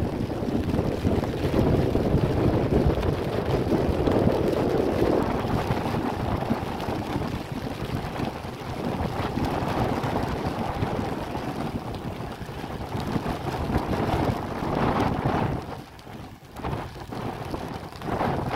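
Storm wind buffeting the microphone in strong gusts, a loud rushing roar that rises and falls and eases briefly near the end.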